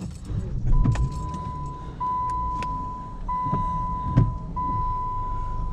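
A car's dashboard warning chime sounding as one steady electronic tone, broken by a short gap about every second and a quarter, over the low running of the car's engine. A few clicks and knocks of handling in the seat come with it.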